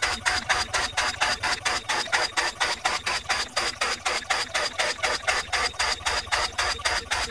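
AccTek AKG6090 CNC router's 3 kW spindle running with a steady high whine as the machine drills a series of holes into the board on its bed. The sound pulses evenly, about five times a second.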